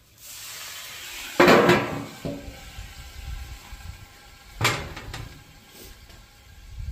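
Water squirted onto the hot steel griddle hissing, then a metal basting dome set down over the food with a loud clatter about a second and a half in, followed by a quieter ring and a second sharp knock near five seconds. Trapping steam under the dome is how the cheese is melted quicker.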